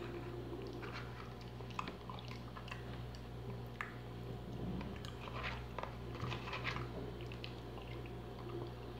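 A person chewing food with their mouth, with small clicks and scrapes of a metal spoon in a bowl as they scoop another spoonful. A faint steady low hum lies underneath.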